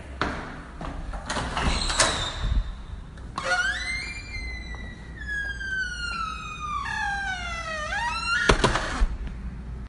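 Door hinges creaking in one long squeal of about five seconds that slides slowly down in pitch, followed by a loud thud. A few knocks and clicks come before the creak.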